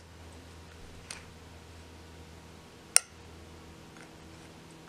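Quiet room with a steady low hum, a faint tick about a second in and one sharp click about three seconds in.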